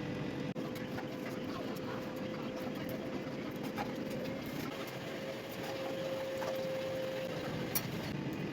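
Air fryer running: a steady fan whir with a faint held hum tone, and a few small clicks.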